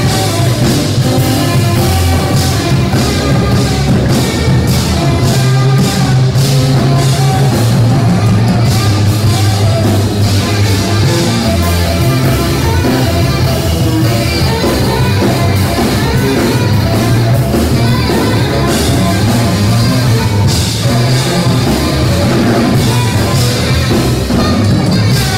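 Live jazz trio playing loudly: saxophone, electric bass and drum kit, with a heavy, sustained bass line under busy drumming.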